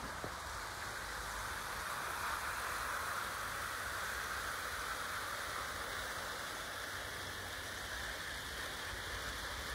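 OO gauge model train running along an outdoor garden track: a steady rolling hiss that swells a couple of seconds in as the coaches pass close by.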